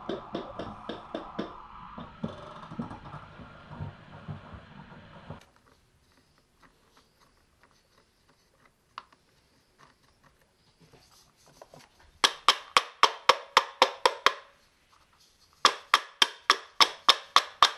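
Rapid, evenly spaced sharp taps, about five a second, in two runs of two to three seconds near the end. Before them, a quieter rhythmic clicking over a steady hum fades out about five seconds in.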